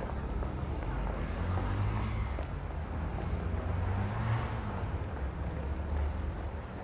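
High-street traffic: a steady low rumble of vehicle engines and tyres, swelling as a vehicle passes close between about one and a half and four and a half seconds in.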